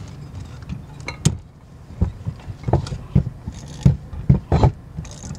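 A socket wrench ratcheting and clunking on the crankshaft nut of a seized 2003 Mercury 3.3 hp two-stroke outboard, worked back and forth to force the rust-frozen piston and crankshaft to turn. It makes a series of irregular knocks and clicks, several in the second half.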